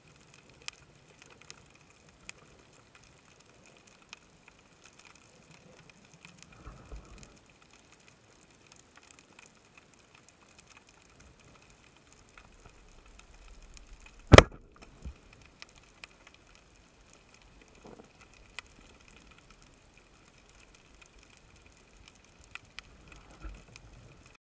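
A speargun fired underwater: one sharp, loud crack a little past halfway through, the shot that spears a sea bream. Around it, faint scattered underwater clicks and crackling.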